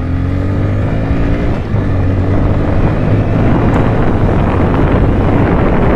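Motorcycle engine pulling under acceleration, its pitch climbing, with a short break about one and a half seconds in before it picks up again. Wind rushes over the microphone in the rider's helmet, growing louder as speed builds.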